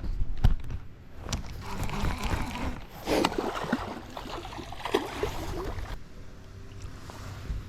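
Water splashing and sloshing with several sharp knocks against a small boat as a hooked pike is fought at the boat's side.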